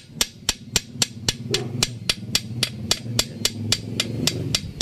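Sharp metallic knocks repeating evenly, about four a second, like steady hammering. Under them runs the low drone of an engine, which gets louder near the end.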